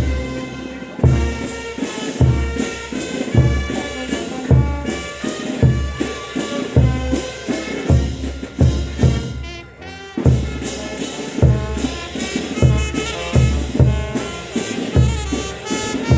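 Brass band music: horns playing a melody over a bass drum that beats a little more than once a second, with a brief break near the middle.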